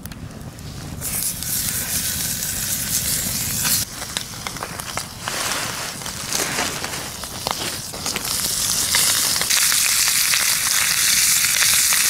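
Wood campfire crackling with sharp pops, and bacon sizzling in a frying pan over the flames. The sizzle grows louder and steadier near the end.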